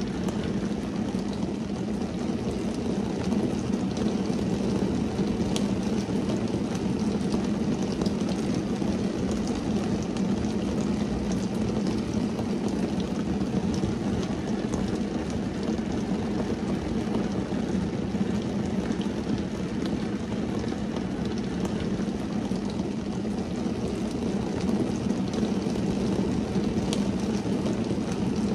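Steady rain falling on a car's windscreen and body, heard from inside the car: a dense, even low drumming with a few sharper single drop taps.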